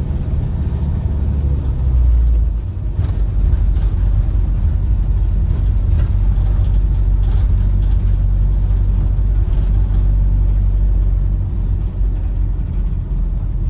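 Engine and road noise heard from inside a van's cab while driving: a steady low rumble, briefly louder about two seconds in.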